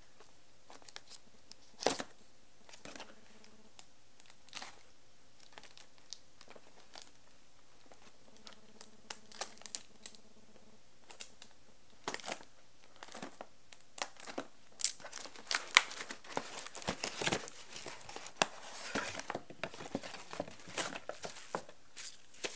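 Packaging being opened by hand on a mailed package: scattered taps and rustles at first, then, from about halfway, dense crinkling and tearing of the wrapping.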